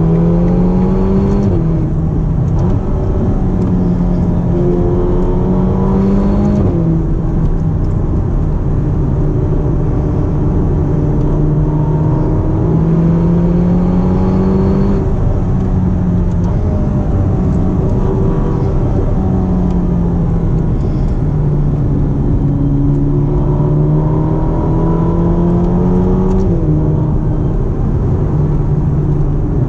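Ferrari GTC4Lusso T's 3.9-litre twin-turbocharged V8 pulling through the gears. The engine note rises and then drops abruptly at each upshift, twice in the first seven seconds and again near the end, and runs steadier in between at speed. Road and tyre noise sit underneath.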